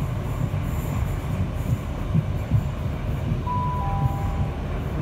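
British Rail Class 465 Networker electric train heard from inside the carriage while running along the line: a steady low rumble of wheels on rail. About three and a half seconds in, a brief high two-note tone sounds over it.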